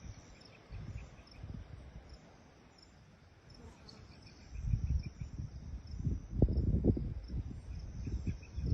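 An insect chirping in short, evenly spaced high pulses. From about halfway through, low rumbling noise swells and becomes louder than the chirps.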